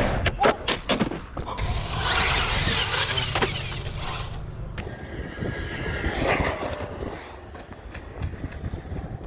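Radio-controlled cars crashing and running: a quick run of clattering knocks as a car tumbles, then scraping and squealing, and a motor whine that rises and falls near the middle.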